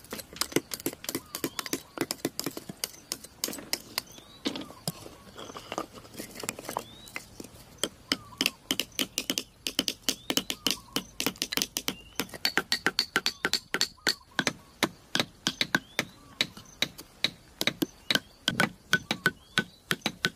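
Sharp, irregular taps and knocks, sparse at first, then a denser run of about three or four a second from about eight seconds in.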